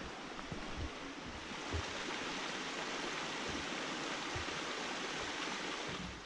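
A brook's water rushing steadily, with a few faint low thumps in the first two seconds.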